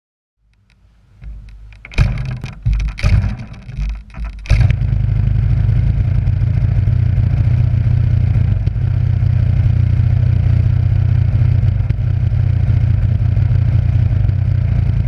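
A DLE-55 single-cylinder two-stroke petrol engine on a large RC plane catches about four and a half seconds in, after a few seconds of sharp knocks and clatter, then idles steadily.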